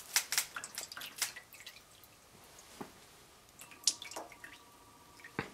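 Insulating oil dripping and trickling from a tilted dental x-ray head into a pan full of oil. There is a quick run of splashing drips in the first second and a half and another cluster about four seconds in.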